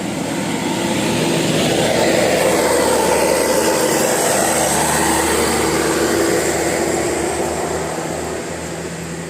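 A bus passing by, its engine and road noise rising over the first couple of seconds and fading away near the end.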